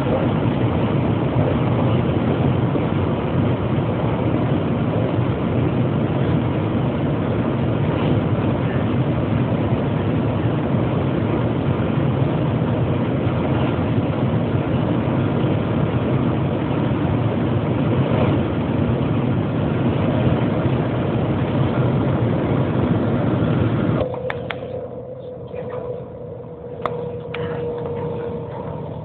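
Shanghai Maglev train cabin noise at speed: a loud, steady rumble and rush. A few seconds before the end it drops suddenly to a much quieter hum with a faint steady tone and a few light clicks.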